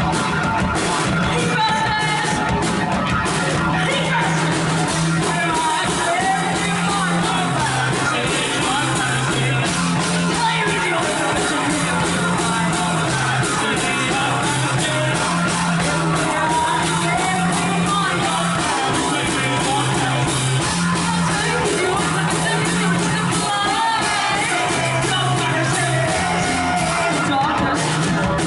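Rock band playing live with sung and yelled vocals, over a low bass line that moves back and forth between two held notes.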